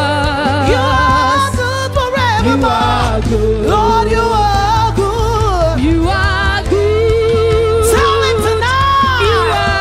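Live gospel worship music: singers with strong vibrato over a band with a steady bass line.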